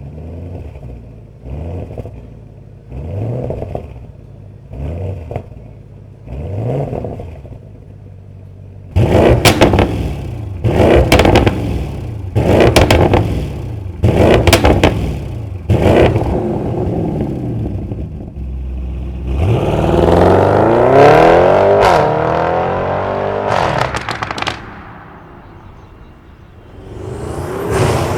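Audi RS6 (C8.5) twin-turbo 4.0 V8 breathing through an aftermarket Stone catted downpipe and petrol particulate filter. For the first eight seconds it is blipped in comfort mode: about six short revs, each with a rising note. It is then revved harder in sport mode, louder, with crackles on each blip. About 19 s in it accelerates hard, its note climbing and then falling as it fades, and it rises again near the end.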